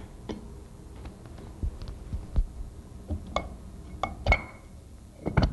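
Metal parts knocking and clinking as the head assembly of a Corken Z-model sliding-vane pump is pushed into place over the shaft onto the pump casing. Scattered short knocks, one clink ringing briefly about four seconds in, and a loud pair of knocks near the end.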